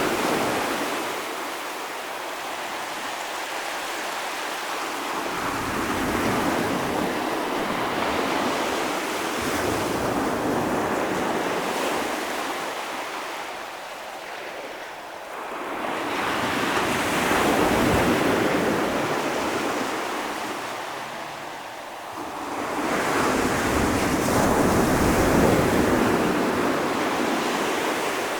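Ocean waves breaking and washing on the shore, a steady rush that swells and falls back in slow surges, loudest near the start, around the middle and near the end.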